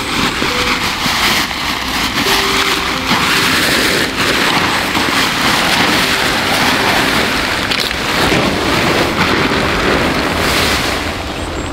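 A Hilleberg Tarp 20 UL's ultralight fabric rustling and flapping loudly as it is pulled from its stuff sack and shaken out, spread billowing over the ground.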